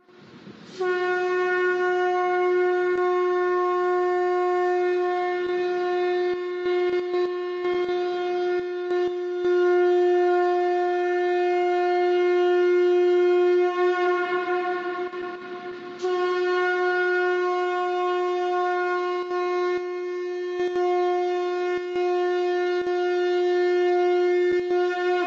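Conch shell trumpet blown in two long, steady blasts on one held note. The first lasts about thirteen seconds, and the second starts about two seconds after it ends.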